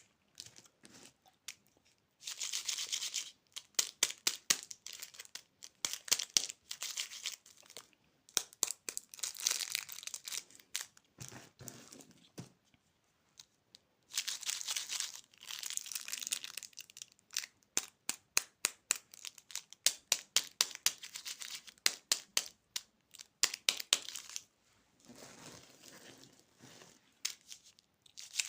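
Plastic candy wrappers being crinkled and torn open: dense sharp crackling, broken by several longer tearing rips of a second or two.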